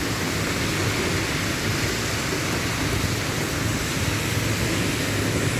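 Steady hiss of light rain falling in drizzly weather.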